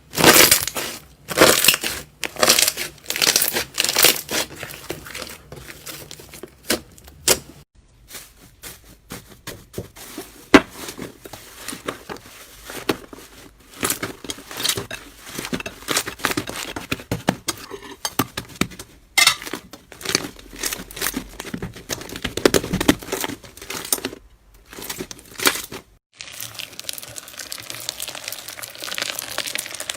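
Slime being squeezed and pressed by hand, giving dense, irregular crackles and pops. The sound changes abruptly twice, about 8 s and 26 s in.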